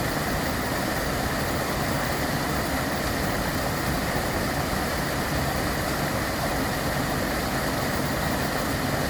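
Steady rush of water from a small mountain waterfall, an even noise with no breaks.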